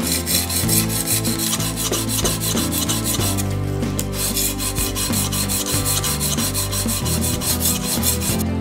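Sharpening stone on a guided-rod sharpening jig being rubbed along a clamped kitchen knife's edge in quick, repeated scraping strokes. The strokes pause briefly a little over three seconds in, then resume.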